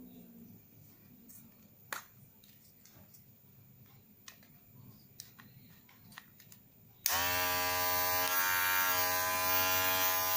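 Kemei 2600 electric hair clipper switched on about seven seconds in and running with a steady buzz. Before that there are a few faint clicks of the clipper being handled.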